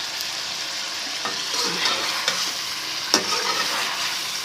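Chicken frying and sizzling in oil in a karahi while being stirred, with a sharp knock about three seconds in.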